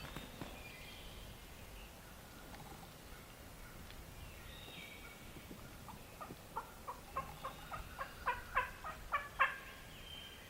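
Wild turkey yelping: a run of about a dozen short yelps, roughly four a second, growing louder over the last few seconds, with fainter bird calls earlier.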